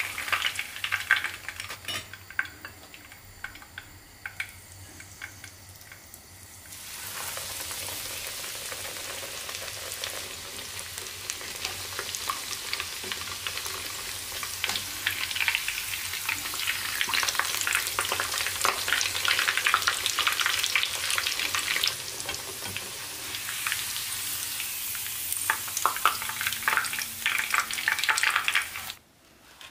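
Panko-breaded pork cutlet shallow-frying in hot oil in a frying pan: a dense sizzle with crackles. It is quieter for the first few seconds, jumps louder about seven seconds in and stays loud until it cuts off just before the end.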